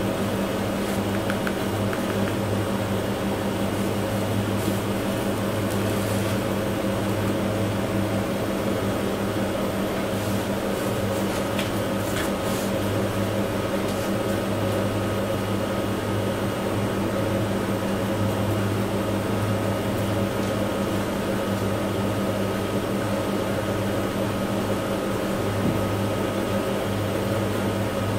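A steady low mechanical hum, as of a fan-type electric motor running, even in level.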